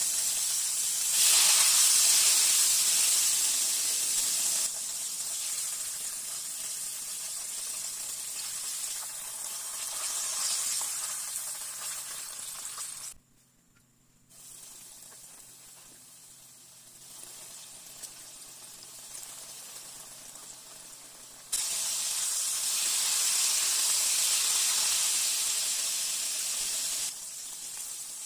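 Battered chicken breast pieces deep-frying in hot oil: a steady sizzling hiss. It jumps louder and softer in steps and drops briefly to near silence about halfway through.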